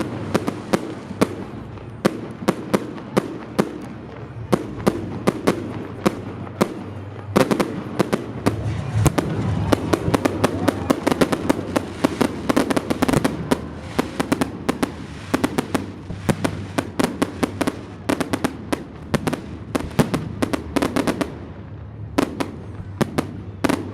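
Fireworks salute going off: a rapid series of sharp bangs and cracks, several a second, growing denser and fuller from about eight seconds in.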